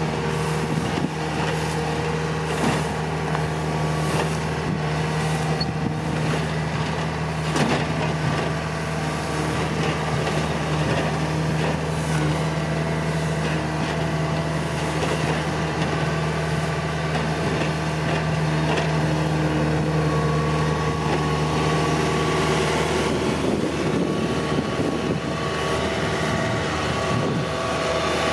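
Kubota rice combine harvester running steadily as it harvests: a constant engine drone with the clatter of the cutting and threshing gear. Near the end it turns rougher and noisier as the machine comes right up close.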